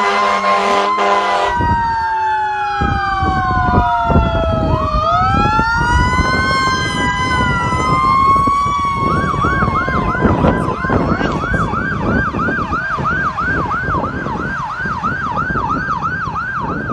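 Several emergency-vehicle sirens sounding at once, their wails rising and falling over one another, with a horn blast in the first second and a half. About halfway through, one siren switches to a fast yelp of roughly three cycles a second, over the low rumble of heavy vehicles.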